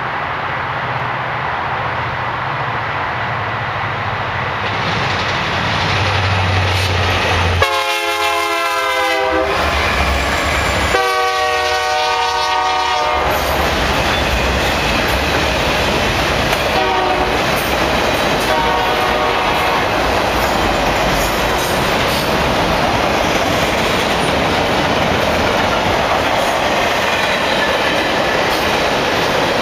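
Union Pacific freight train approaching and passing, its diesel locomotives rumbling, with the horn sounding two long blasts about a quarter of the way in and fainter horn notes a few seconds later. After that comes the steady rolling noise and clickety-clack of flatcars loaded with trailers and containers going by.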